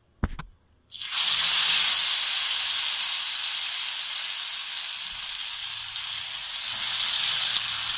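A short click, then marinated chicken dropped into hot ghee on a tawa: a loud sizzle breaks out suddenly about a second in and keeps frying steadily, easing off a little after its first burst.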